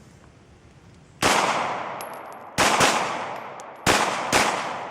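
Glock 19X 9 mm pistol firing five shots: one, then a quick pair, then another pair, each shot followed by a long fading echo.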